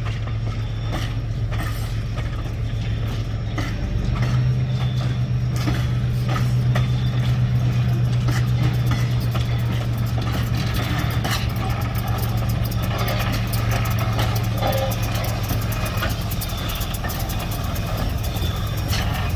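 Norfolk and Western 611, a Class J 4-8-4 steam locomotive, running with a steady low rumble and scattered clanks and clicks. It grows louder about four seconds in.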